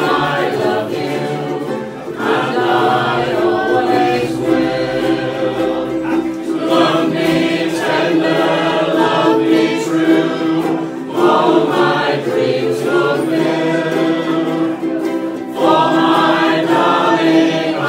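A ukulele group strumming while the players sing together as a choir, line after line with short breaks between the sung phrases.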